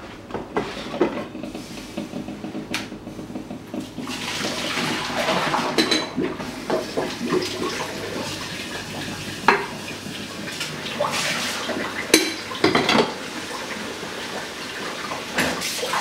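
Water running from a tap as a glass coffee carafe is rinsed out and filled, with sharp clinks and knocks of the glass against the sink.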